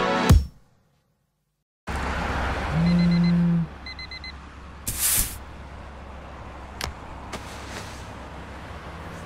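Music cuts off, a moment of silence, then an alarm goes off: two quick groups of four high beeps over a low buzz. A rustle and a click follow against a steady low room hum.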